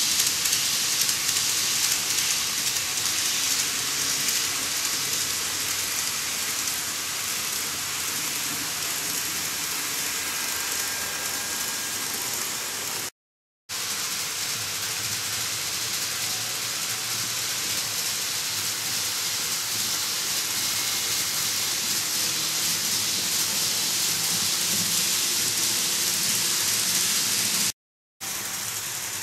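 N-gauge model trains running on plastic sectional track, giving a steady rushing hiss of small wheels on rail and a faint motor whine. The sound cuts out briefly twice.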